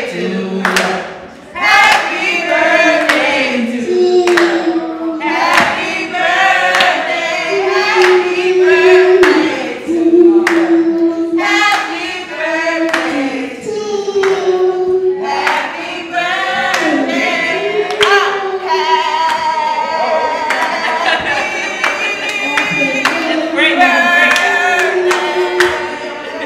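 A woman singing live, holding long, sliding notes, with a few sharp percussive hits now and then.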